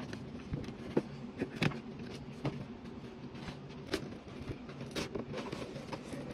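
Cardboard doll box being opened by hand: the end flap pulled open and the inner tray slid out, with scattered taps, knocks and scrapes of cardboard.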